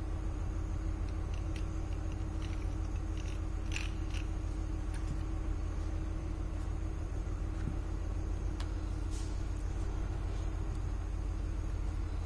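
A steady low rumble with a constant hum. Over it, small metal parts give light clicks and clinks as they are handled: several in the first five seconds and a couple more past the middle.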